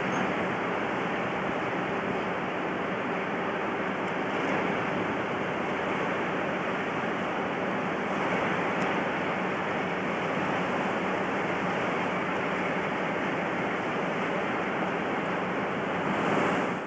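English Electric Class 50 diesel locomotive with its 16-cylinder engine running at low power, a steady rushing drone of engine and cooling fans (the 'Hoover' sound) with a faint hum underneath.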